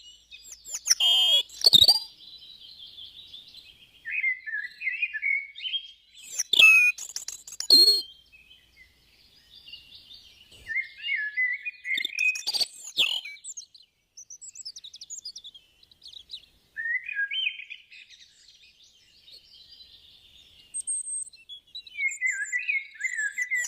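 European robin singing: varied, high warbling phrases of a couple of seconds each, with short pauses between them. A few loud, sudden sounds that sweep down in pitch break in about three times, and these are the loudest moments.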